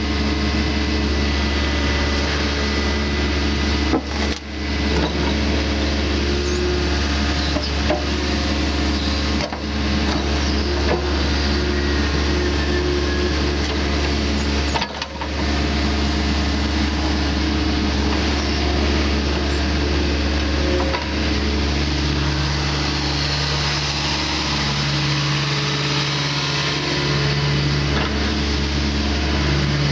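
Diesel engine of a 2016 Takeuchi TB240 mini excavator running steadily. There are brief dips about four, nine and fifteen seconds in. From about twenty-two seconds in, a second, lower hum cuts in and out every couple of seconds.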